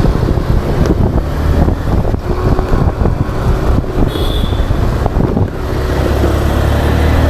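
Motorcycle engine running while riding in traffic, with wind and road noise on an action camera's built-in microphone. A brief high tone sounds about four seconds in.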